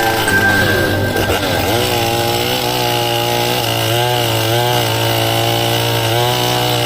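Chainsaw running, its engine pitch rising and dipping again and again as the load changes.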